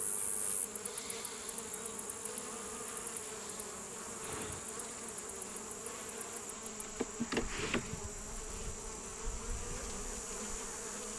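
Honeybee colony buzzing in a steady hum as the hive body is opened, the bees disturbed by it. A few sharp knocks come about seven seconds in.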